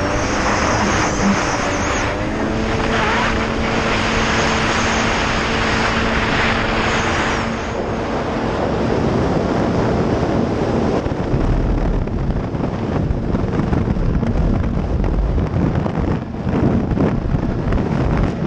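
2000 Sea-Doo GS personal watercraft's two-stroke engine running at a steady pitch over the rush of wind and water. About halfway through the engine note fades out, leaving wind buffeting on the microphone and water slapping.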